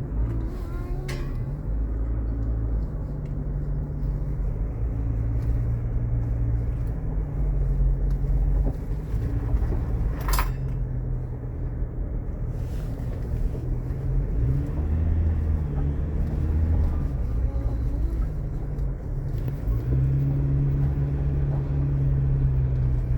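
A motor vehicle's engine running, its pitch shifting up and down, with a sharp click about ten seconds in.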